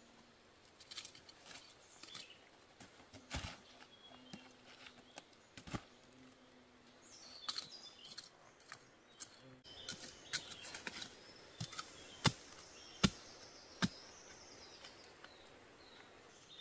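Dry leaf litter, twigs and loose soil crackling and scraping, with scattered sharp snaps, as earth is cleared by hand from around a bamboo shoot on a steep slope. Birds chirp faintly now and then.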